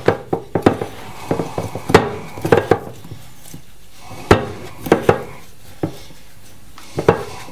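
Hand kneading a stiff bait paste in a glass bowl: irregular knocks and clinks of the hand against the glass, coming in clusters with quieter stretches between.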